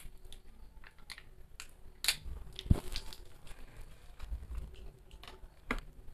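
Small plastic jelly cups being handled and opened while the jelly is eaten: scattered soft clicks and crinkles of plastic, with a few sharper clicks about two to three seconds in.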